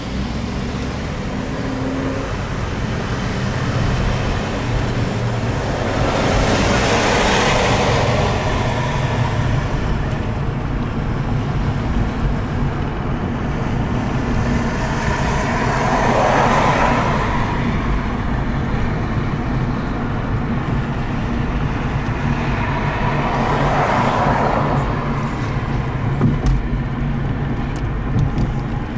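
Steady engine and road rumble heard inside a moving car, with traffic noise swelling and fading three times.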